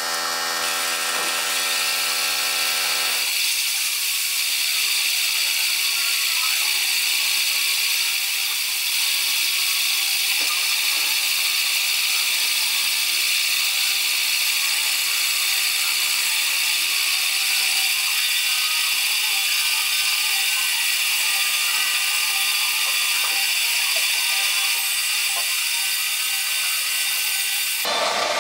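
Warco Super Mini Lathe running with a steady high-pitched whine while a turning tool faces off the end of a steel bar held in its three-jaw chuck.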